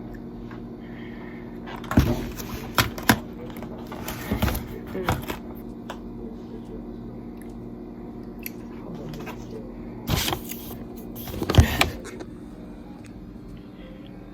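A steady low hum broken by scattered sharp clicks and knocks, the loudest about two seconds in and near ten and eleven and a half seconds.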